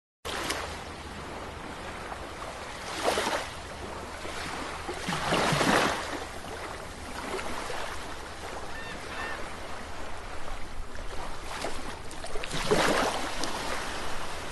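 Ocean surf washing onto a beach: a steady hiss of water with three louder surges as waves break.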